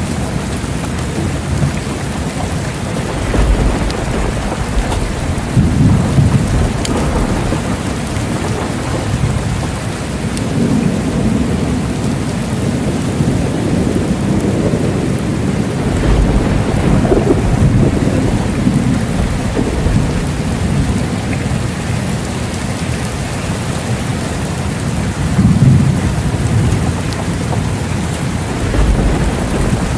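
Steady heavy rain falling, with low rolls of thunder rumbling several times through it.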